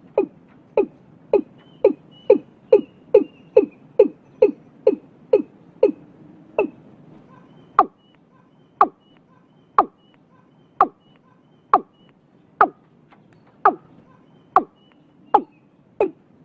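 Watercock (cúm núm) calling: a series of short, sharp notes, each falling in pitch. They come about two to three a second at first, then slow to about one a second from around eight seconds in, with faint high chirps in between.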